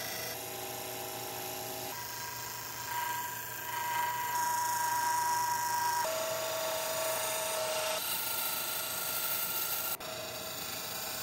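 Wood lathe running while a gouge cuts a spinning blank of glued bamboo straws. It makes a steady motor whine mixed with cutting noise, and the pitch of the whine jumps abruptly several times.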